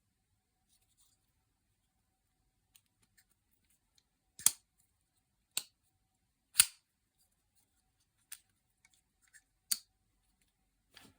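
SRM 408L-GX folding pocket knife being opened and closed by hand: a series of sharp metallic clicks as the blade snaps out and shuts. There are about six separate clicks a second or so apart, with two louder snaps in the first half.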